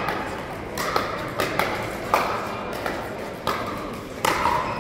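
Pickleball paddles hitting a plastic ball in an irregular run of sharp pops, about two a second, each ringing briefly in the echo of a large hall.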